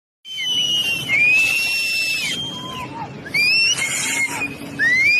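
People shrieking in alarm as a flash flood and mudslide comes down, several long high cries that rise and fall and overlap. Under them is the low, steady rumble of the rushing flood.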